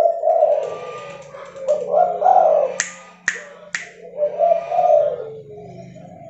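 Red-leopard colour-mutation spotted dove cooing in repeated low phrases. Three sharp snaps come about half a second apart near the middle.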